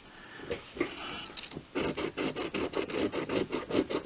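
A scratch-off lottery ticket's coating being scraped off in quick rasping strokes, about seven a second. The strokes start about two seconds in, after a few light scrapes and taps.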